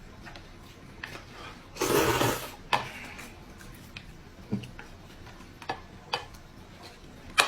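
A person eating rice noodles: one loud slurp about two seconds in, with scattered light clicks of utensils against the dish.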